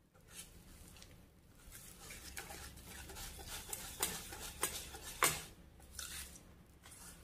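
Wire whisk stirring thick batter in a stainless steel bowl, with a wet slapping swish and irregular scrapes and clinks of the wires against the metal. A few sharper clinks come a little past the middle.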